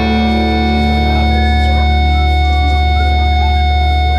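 Background music: a single guitar chord held and ringing over a deep, steady bass note.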